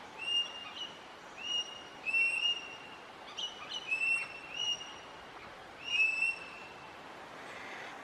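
Male Australian king parrot calling: a series of about ten short, high, piping whistles, some in quick pairs, that stop about a second before the end.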